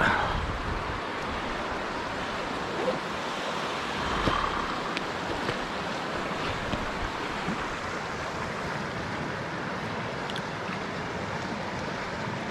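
Steady rush of river water flowing over stones, with a few brief handling knocks near the start and about four seconds in.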